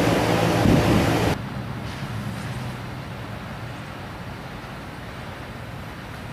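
A loud engine rumble with a low steady hum cuts off abruptly about a second and a half in. It gives way to quieter, steady outdoor background noise with distant road traffic.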